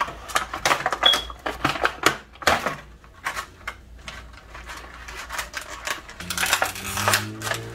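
Plastic toy packaging (clear blister packs and wrappers) being handled and pulled apart, with many short crinkles, clicks and rattles. A low steady hum comes in near the end.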